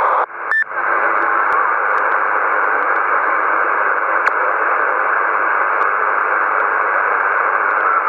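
Steady hiss of band noise from a Yaesu transceiver receiving 27 MHz lower sideband, with a few faint static clicks. About half a second in, the noise drops out briefly and a short beep sounds as the parrot repeater's transmission ends. The replying station's direct signal is too weak to be heard under the hiss.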